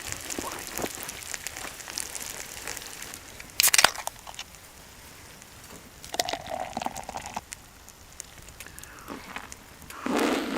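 Scattered small crackles and crinkling rustles of a wood fire and handling noise. A brief loud rustle comes about three and a half seconds in, a short hum about six seconds in, and another loud rustle near the end.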